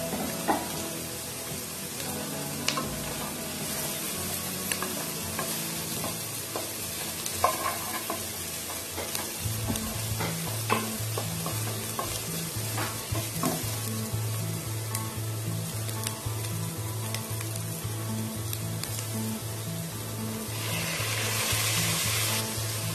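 Chopped onions sizzling in hot oil in a non-stick pan while being stirred with a spatula, with scattered sharp taps and scrapes of the spatula against the pan. Near the end the sizzle briefly gets louder and brighter as chopped tomatoes go into the hot pan.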